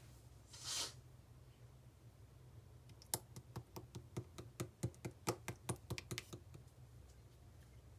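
Pink fondant slime being worked by hand: a brief soft swish, then about three seconds of sharp, quick clicky pops, roughly six a second, as the slime is pressed and squished.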